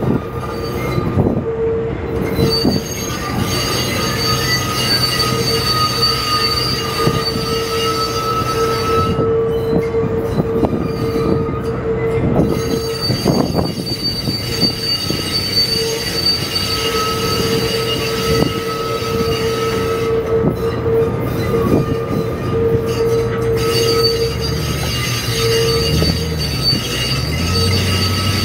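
Train's steel wheels squealing against the rails, a high whine that fades and comes back several times, over a steady low hum.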